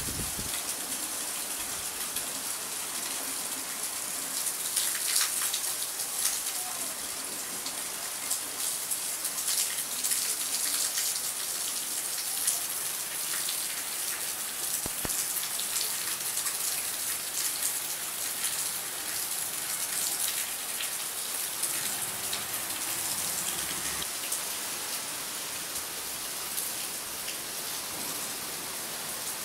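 Steady rain falling, a continuous hiss with a dense patter of drops.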